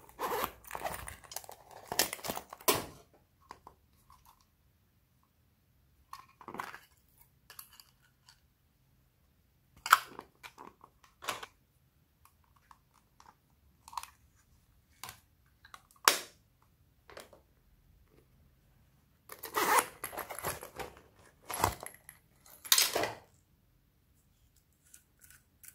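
A zipper on a small coin purse being pulled open over the first three seconds, then scattered sharp clicks and taps of small plastic objects being handled and set down, with another longer stretch of rasping handling noise about twenty seconds in.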